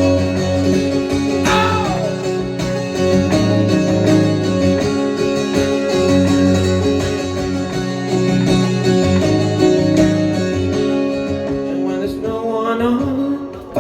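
Acoustic guitar playing an instrumental break in a folk song, with a short sliding vocal sound about a second and a half in and the voice coming back near the end.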